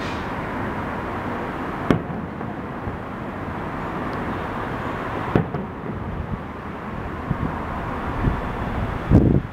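Aerial fireworks shells bursting: a single sharp bang about two seconds in and another about five seconds in, then a quick cluster of bangs near the end, over a steady rushing background noise.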